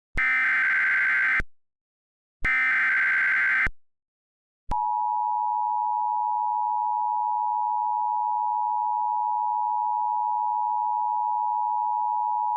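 Emergency Alert System tones: two screeching bursts of the SAME header's digital data, each about a second long and about a second apart, then the EAS two-tone attention signal (853 and 960 Hz) held steady for about eight seconds, starting just under five seconds in. Together they announce an emergency alert.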